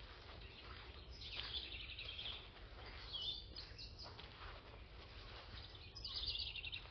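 Faint birdsong: several short bursts of quick, high chirps and trills, with a quiet hum of background noise underneath.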